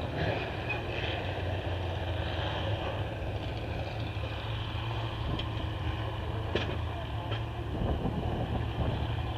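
A vehicle engine running steadily with a low drone, and three light clicks in the second half.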